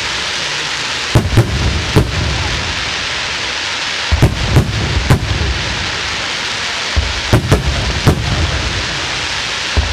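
Daytime aerial fireworks shells bursting overhead in sharp, loud bangs, about nine of them, singly and in quick pairs, over a steady hiss.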